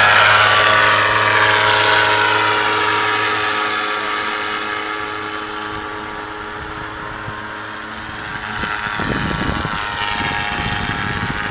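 Small engine of a paraglider-borne Ape three-wheeler running at a steady drone that slowly fades as it flies away. A rumble of wind on the microphone comes in about nine seconds in.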